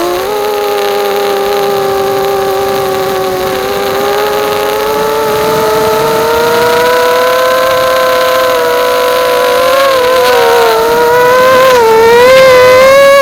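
Bee210 FPV quadcopter's electric motors whining in flight. Several close pitches run together, and the whine dips and climbs again with throttle changes twice near the end.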